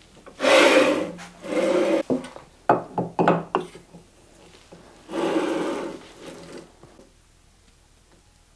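Onefinity Revolution rotary's tailstock carriage slid along its steel guide rods with a rubbing, rasping noise: two strokes near the start and a longer one about five seconds in. Between them come several sharp wooden knocks as a block of cherry is set against the chuck.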